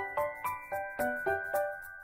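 Background music: a light, bouncy tune of struck bell-like notes over a soft steady beat.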